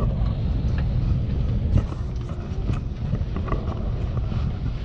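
Steady low rumble inside a parked airliner's cabin, the drone of its air and ventilation system, with scattered light clicks and knocks from passengers moving in the aisle.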